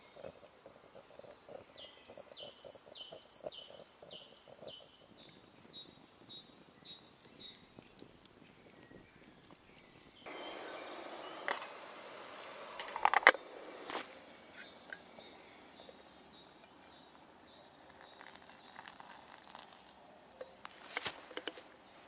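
Water heating in a Trangia kettle over a spirit burner: a few seconds of hissing and bubbling, starting suddenly about ten seconds in, with a couple of sharp clinks. Earlier, a small songbird sings a run of repeated high notes. Near the end come a few short knocks.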